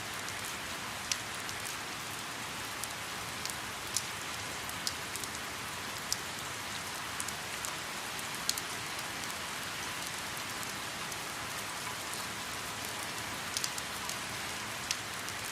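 Light rain falling on a river's surface: a steady soft hiss with scattered individual drops plinking.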